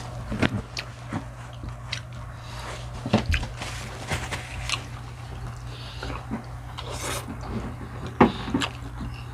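A person eating close to the microphone: chewing and biting, with scattered small clicks and smacks, over a steady low hum.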